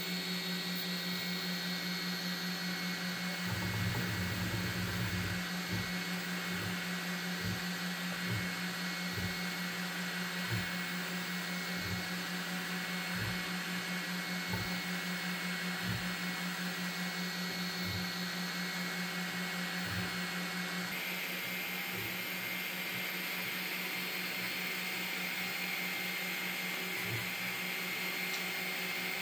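TwoTrees TTC H40 CNC machine running a slow laser engraving job: its stepper motors and laser module make a steady hum with a high whine, with soft low knocks about once a second. A fuller low rumble comes in briefly a few seconds in.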